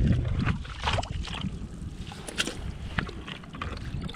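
Low wind rumble on the microphone over the splash and lap of sea water among shoreline rocks, with scattered short knocks and scrapes of footsteps and hands moving over the rocks.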